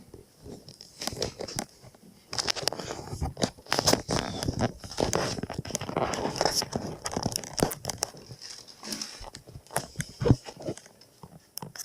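Dishwasher being shifted back into its cabinet opening by hand, with scraping, rustling and sharp knocks, densest in the middle and ending in one loud knock near the end.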